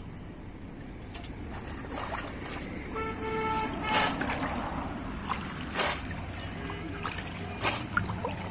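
Bamboo polo fish trap being plunged down into shallow muddy pond water again and again, a splash every second or two over a steady background noise. A short high-pitched tone sounds about three seconds in.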